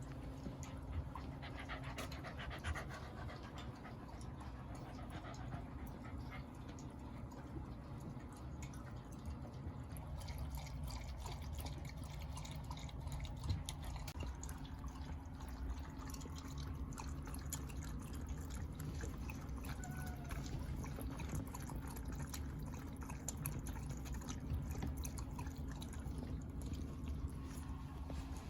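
A Shiba Inu dog panting over a steady low hum, with many quick faint clicks through the second half.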